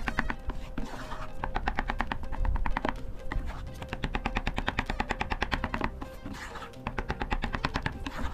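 Wooden spatula stirring thick pudding custard in a nonstick pan, making bursts of rapid clicking scrapes about a second long, with short gaps between them. Background music runs underneath.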